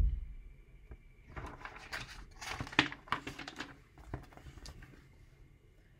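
Pages of a picture book being turned by hand: a soft thump at the start, then about two seconds of paper rustling and flapping as the page goes over.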